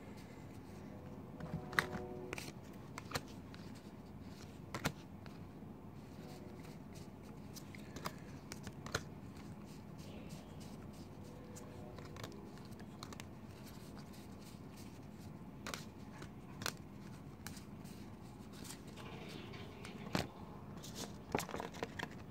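Scattered light clicks, taps and rustles of trading cards being gathered and sorted by hand, over quiet room tone.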